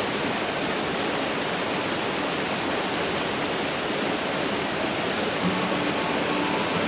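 Steady, even rushing noise with no distinct events, of the kind made by running water.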